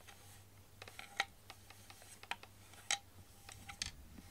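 A cat rubbing its face against the corner of a wooden chair: a string of short, sharp clicks and light scrapes, about seven in all.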